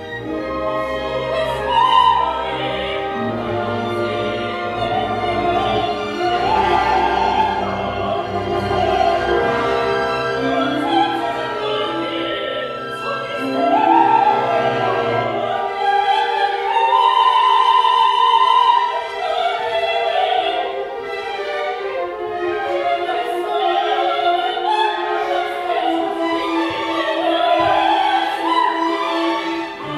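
Opera singing in Czech: female voices singing over a full orchestra. About halfway through, the orchestra's low bass drops out, leaving the voices over lighter, higher accompaniment.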